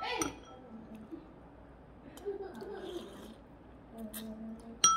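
Noodles being slurped and eaten, with a brief hum, then a metal utensil clinking sharply against a ceramic bowl near the end, leaving a short ringing tone.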